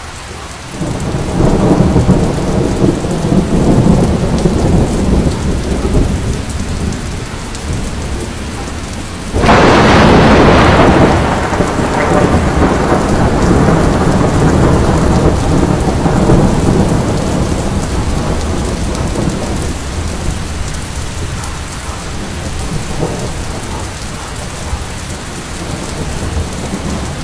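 Heavy rain in a thunderstorm with rumbling thunder; a sharp thunderclap breaks about nine seconds in and rolls away over several seconds.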